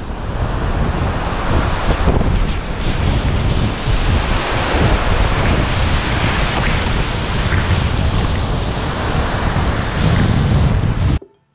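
Wind buffeting the microphone over the steady wash of ocean surf breaking on a sandy beach, cutting off suddenly near the end.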